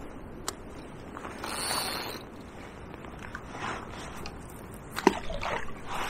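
Steady outdoor noise of wind and moving river water. There is a single click about half a second in, and a short cluster of sharp clicks and rustles near the end as the fishing rod and reel are handled.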